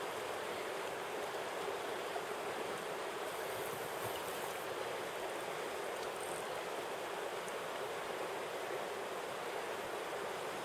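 Steady rush of a river's flowing current.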